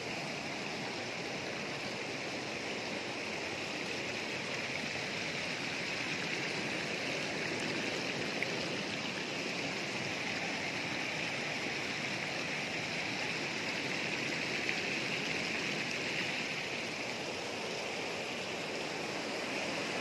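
Mountain stream water running steadily over rock, an even rushing with no breaks.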